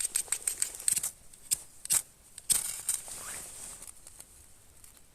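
Ferrocerium fire-starter rod being struck with a scraper to throw sparks onto tinder: a fast run of short scrapes, about eight a second, then three louder, longer strikes two to three seconds in, each with a brief hiss.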